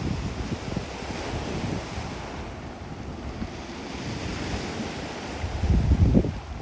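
Waves breaking and washing up the shore of the Sea of Japan, with wind buffeting the microphone in gusts, the strongest about six seconds in.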